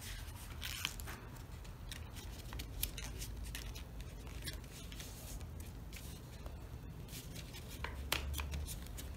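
A sheet of origami paper being folded and creased by hand: faint rustling and crinkling, with a few sharper crackles as the folds are pressed down.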